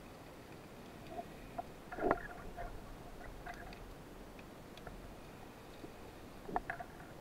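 Underwater ambience heard through a camera housing: a steady faint hiss with scattered small clicks, and two louder knocks, about two seconds in and near the end.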